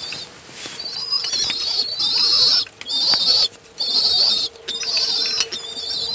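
Pigeon squabs begging with high-pitched, wheezy squeaking calls, about six in a row, each under a second with short gaps between, while the birds peck seed from a dish with a few sharp taps.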